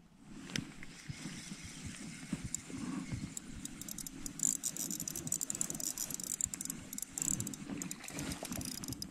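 Daiwa Exist 2000 spinning reel being cranked to retrieve line, giving a rapid, uneven ticking from its gears and handle, with a light rustle of handling.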